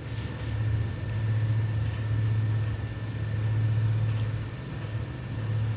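A steady low hum that swells and fades every second or two, with a faint high-pitched whine above it.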